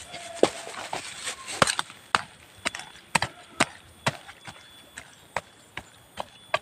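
A small metal hand blade chopping into dry soil, about two sharp strikes a second, digging out a planting hole.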